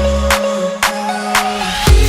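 Electronic dance-style background music with a steady beat; the bass drops out for a moment and returns with a heavy kick drum near the end.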